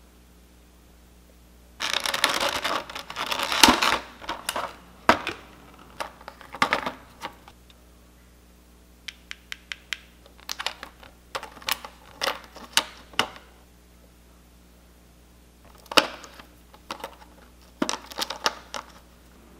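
Hard plastic Nendoroid parts clicking and tapping as they are handled and set down, in irregular clusters of sharp clicks. There is a dense stretch of rustling about two seconds in, and the plastic bag around the parts tray crinkles near the end.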